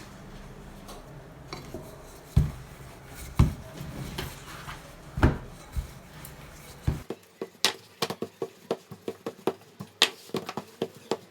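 Kitchen utensils knocking and clattering on a hard work surface: a few loud, sharp knocks in the first half, then quick light clicks and taps, several a second.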